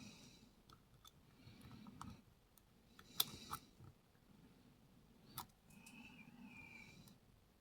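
Faint metallic clicks of a lock pick working the pins of a six-pin challenge lock, the pick probing for binding pins. The clicks come scattered, with a few sharper ones about three seconds in and again past five seconds, over soft breathing.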